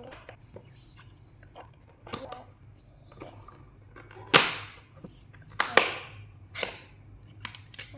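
Handling noises: a handful of short rustling swishes, the loudest about four seconds in and three more close together around six seconds.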